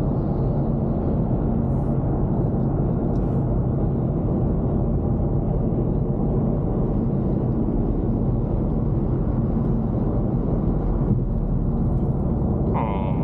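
Steady low rumble of road and engine noise inside a car's cabin while driving in traffic, with a brief gliding tone near the end.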